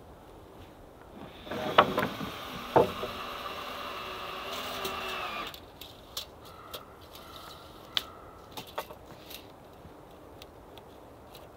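Wooden lumber boards knocking together twice as a board is set down on a stack, then a few seconds of board-on-board scraping that stops abruptly. Lighter taps and clicks of boards being handled follow.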